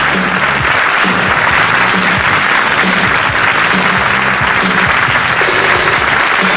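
Studio audience applauding steadily while walk-on music plays, a bass line stepping between low notes underneath the clapping.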